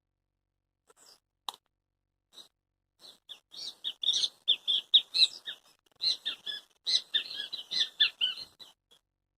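Songbird singing: a few scattered chirps, then from about three seconds in a fast run of short, high chirping notes that stops shortly before the end.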